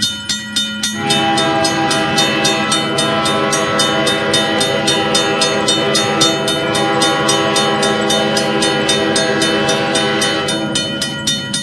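A train horn sounding a steady held chord, with extra tones joining about a second in and dropping away near the end, over fast, even clicking of about five ticks a second like wheels over rail joints.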